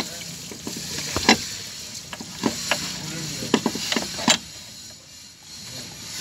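Irregular sharp clicks and knocks of parts and hand tools being handled at the front of a stripped-down diesel engine, over a faint hiss. The loudest knocks come about a second in and a little after four seconds.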